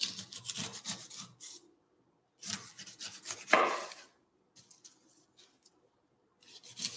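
Chef's knife slicing the rind off a whole pineapple on a wooden cutting board: rasping cuts down through the tough skin in two main strokes of a second or so each with a pause between, then a few light taps and another cut near the end.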